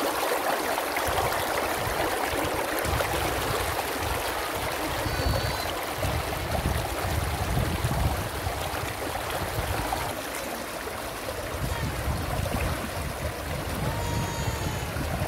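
Thermal spring water running steadily down a narrow channel cut in the white travertine, a continuous rushing trickle.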